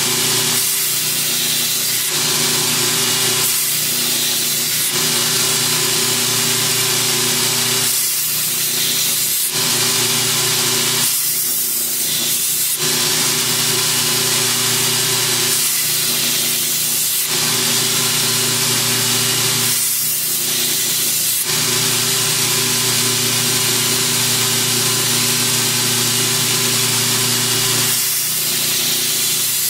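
Belt grinder running with a steady motor hum while a steel machete blade is ground against the abrasive belt in repeated passes. The grinding hiss eases briefly between passes as the blade is lifted off, about every two to four seconds.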